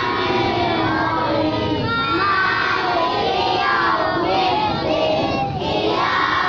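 A large group of children singing together in unison, many voices at once.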